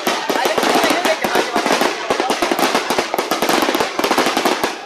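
Fireworks crackling: a dense, rapid run of sharp pops, many a second, with no break.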